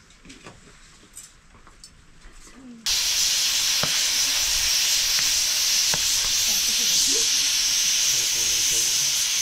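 After about three seconds of quiet, a loud, steady hiss starts suddenly: an aluminium pressure cooker on a wood fire venting steam.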